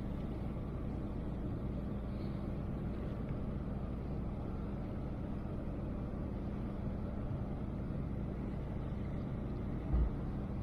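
Steady low drone of a running engine. A brief dull thump comes near the end.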